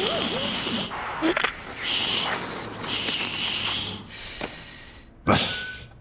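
Hissing in three bursts, the first and last about a second long and the middle one short, with brief wordless vocal glides between them, then a sharp loud burst near the end.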